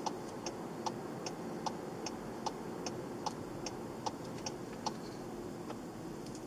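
Car turn-signal indicator ticking inside the cabin, about two and a half clicks a second with alternating louder and softer clicks, over the low drone of the car on the road; the ticking stops near the end.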